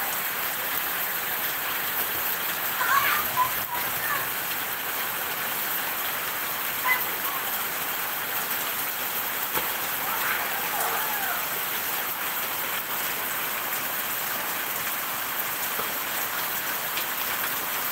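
Heavy rain falling steadily: a constant, even hiss of rain on the ground and leaves.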